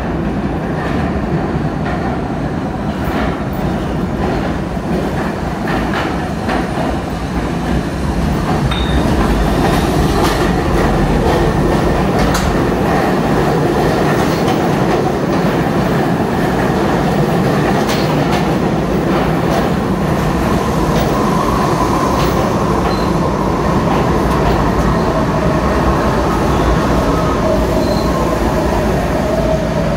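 NYC Subway R68/R68A train running on the rails: a steady rumble of wheels with scattered clicks over rail joints, growing louder about eight seconds in and then holding steady.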